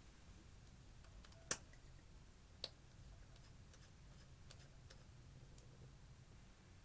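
Faint scattered clicks of clear slime being mixed by hand with eyeshadow, with two sharper clicks about a second and a half and two and a half seconds in.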